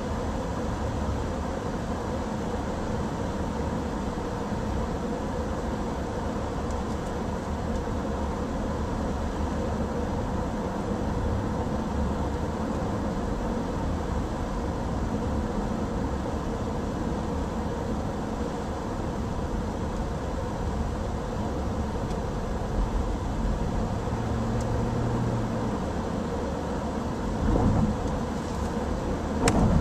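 Steady road and engine noise of a car driving along at speed, with two short louder thumps near the end.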